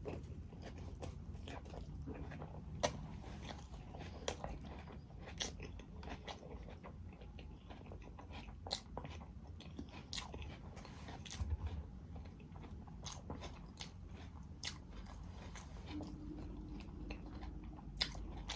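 Close-up eating sounds: a person chewing and biting into crunchy food, with irregular sharp crunches and clicks throughout.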